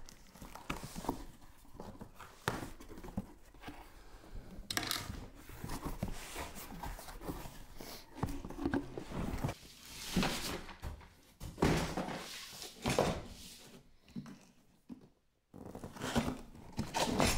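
A cardboard box being opened and unpacked by hand: irregular thuds and knocks with rustling of cardboard and packing, and a brief pause about fifteen seconds in.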